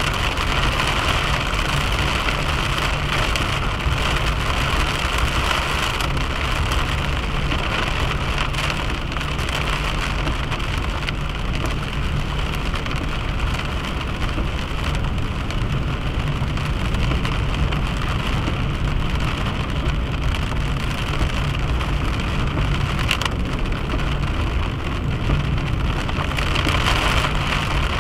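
A car being driven: a steady low hum of engine and tyres with an even hiss over it.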